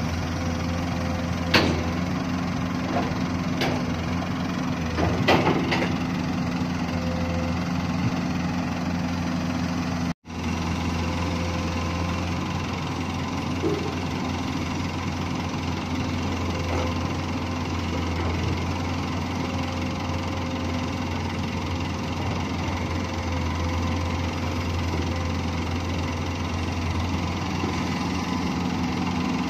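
Komatsu PC200 long-reach excavator's diesel engine running steadily, with a few sharp knocks in the first six seconds.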